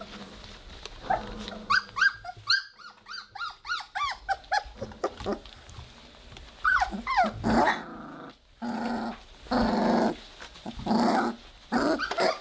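Three-week-old Weimaraner puppies play-growling: a quick run of short, high yips, then several longer growls. These are their first growls.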